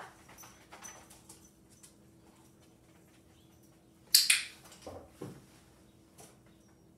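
A puppy moving about on a rug and nosing a spring-mounted target ball: scattered light ticks, then a sharp double click-rattle about four seconds in as the toy is touched, followed by two soft thumps. A faint steady hum runs underneath.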